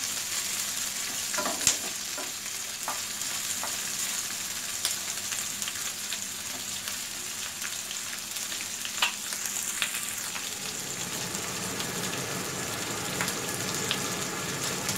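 Onion, capsicum and green chilli pieces sizzling in hot oil in a non-stick frying pan, sautéed only until soft. A wooden spatula knocks against the pan a few times, most sharply about two seconds in and again near nine seconds.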